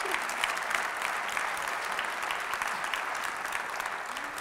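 Audience applauding: a steady spell of many hands clapping that begins to die down near the end.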